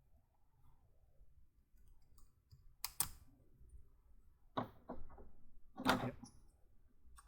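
LEGO Technic pieces being handled and snapped together, with three clusters of sharp plastic clicks in the middle stretch and quiet handling noise between them.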